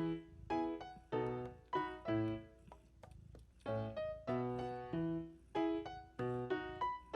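Background music: a light, bouncy piano tune played in short separate notes and chords.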